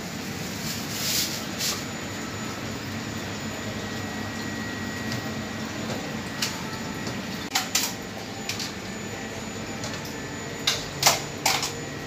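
Steady background hum with a faint steady whine, broken by scattered sharp clicks and knocks, a cluster of three near the end being the loudest.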